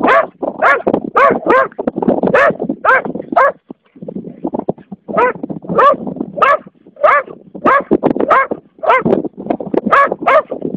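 Dog barking repeatedly, about two barks a second, stopping for a moment about three and a half seconds in and then barking on, as a dog does when confronting a snake.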